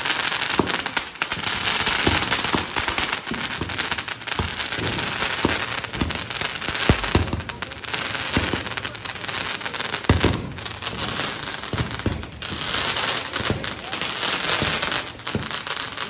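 Ground fountain fireworks spraying sparks with a steady hiss, with frequent sharp cracks and pops of firecrackers through it.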